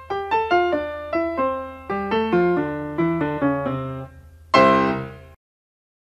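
Intro jingle of quick piano notes in falling runs over a low steady hum, ending on a louder chord about four and a half seconds in that rings briefly and cuts off sharply.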